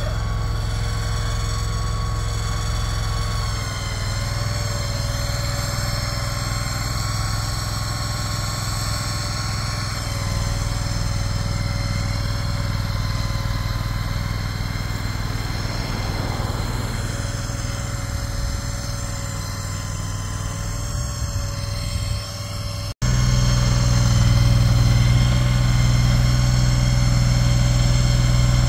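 Engine of a Mule shed mover running steadily. About 23 seconds in it breaks off sharply, then carries on louder.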